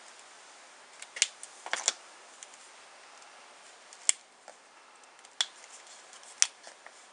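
Sharp plastic clicks and taps of felt-tip colouring markers being uncapped, recapped and swapped by hand: about half a dozen clicks, a few close together in the first two seconds, then single ones spread out.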